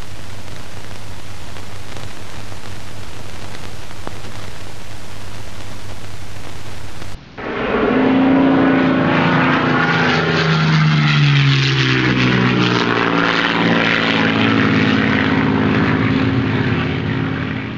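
Steady hiss and low hum from an old film soundtrack. About seven seconds in it cuts to a louder aircraft engine sound with slowly shifting pitch, which fades out near the end.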